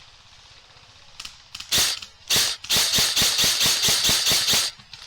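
Airsoft electric rifle (AEG) firing on full auto close to the microphone. A short burst comes a little under two seconds in, then a long burst of rapid, evenly spaced shots with a high, snappy crack, which stops briefly near the end and starts again.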